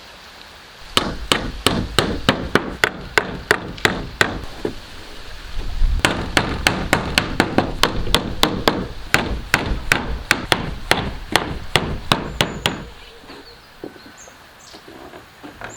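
Hammering on wood: quick, even blows, about four a second, in two runs with a short pause between them, stopping near the end.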